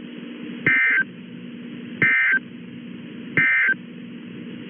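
Emergency Alert System end-of-message signal: three short, loud bursts of digital data tones, about a second and a half apart, over a faint steady hum. They mark the end of the alert message.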